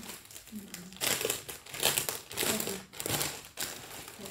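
Clear plastic garment bags crinkling as they are handled and opened, in several louder bursts between about one and three and a half seconds in.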